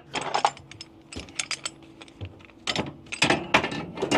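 Ratchet chain binders clanking and clinking, metal on metal, as they are hung on hooks in a flatbed truck's headache rack: a run of irregular sharp knocks over a low steady hum.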